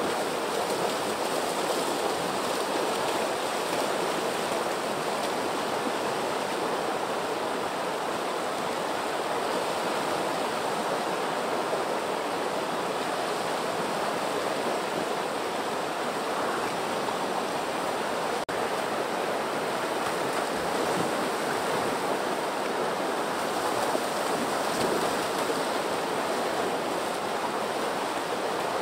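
Water rushing steadily down a shallow rock cascade into a river pool: an even, continuous rush of whitewater.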